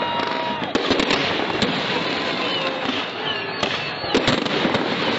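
Fireworks display: continuous crackling with sharp bangs of bursting shells, several of them close together about four seconds in. Over it, whistling fireworks give high whistles that glide in pitch.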